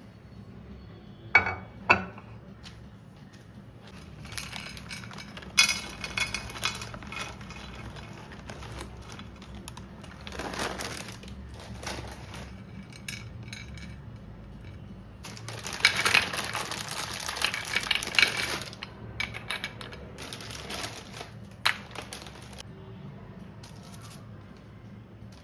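Tableware being handled: two sharp ringing clinks of dishes or cutlery about a second and a half in, then stretches of rustling and scraping with scattered small clicks.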